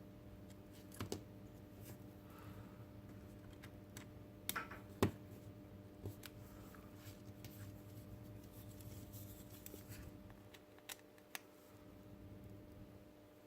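Scattered light clicks and taps of small plastic robot-kit parts and tiny screws being handled, the sharpest about five seconds in, over a faint steady hum.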